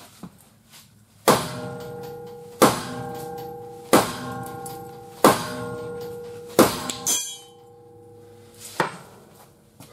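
Five hammer blows on steel, about one every 1.3 seconds, each leaving the metal ringing, followed by a short metallic rattle and one lighter knock near the end.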